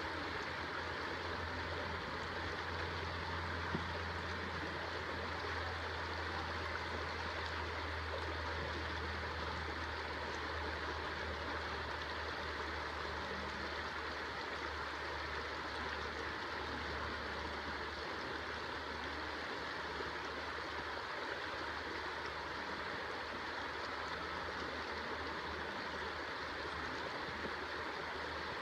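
Shallow river flowing steadily, an even rushing of water, with a low rumble underneath that fades after the first half.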